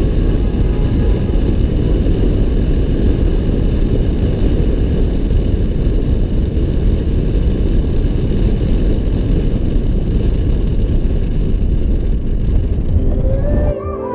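Steady low rumble of a car on the move, the road and engine noise of driving. It cuts off abruptly shortly before the end, where synth music comes in.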